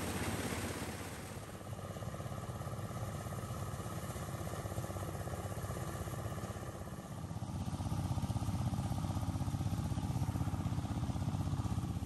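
Motorised drum rice thresher running steadily: an engine drone with a faint whine over it, growing louder about halfway through.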